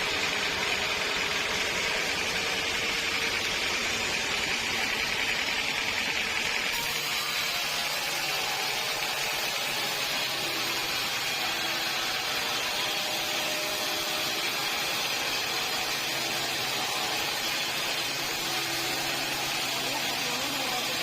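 Sawmill machinery running steadily, with an abrupt change in its sound about seven seconds in.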